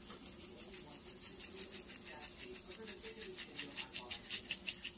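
Seasoning shaken from a spice shaker onto food: quick, even rattling shakes, about six a second, getting louder toward the end.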